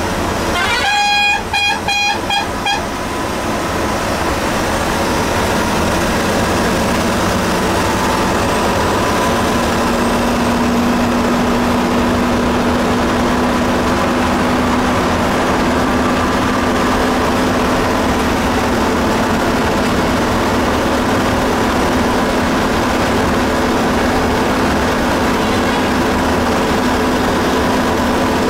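A vehicle horn sounds in a rapid string of short toots about a second in. Then there is steady engine and road noise of a bus cruising at highway speed, heard from inside the cabin, with a steady engine drone coming in near the middle.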